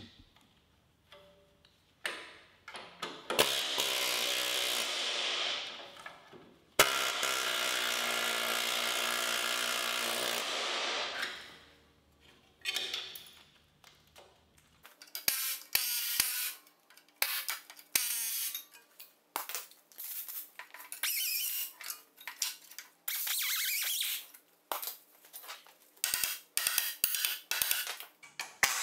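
Small die grinder with an abrasive disc grinding the old floor-pan remains off the lip of a VW Beetle chassis. It runs steadily twice for about four seconds each, then in many short trigger bursts from about halfway through.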